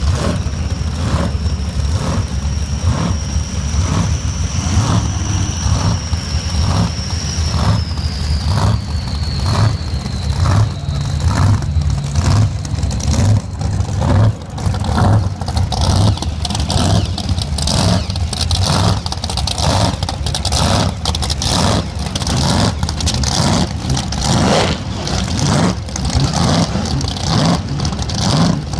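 Race boat's engine running loud while warming up, with a steady low pulsing rhythm and rises in revs now and then. A thin high whine slides slowly downward through the first third.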